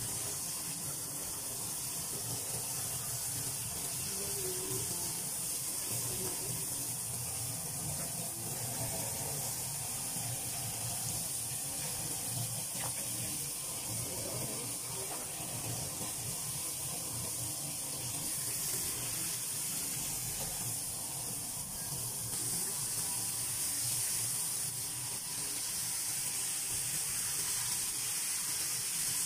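Flour-dredged fish fillets deep-frying in hot oil: a steady, even sizzle.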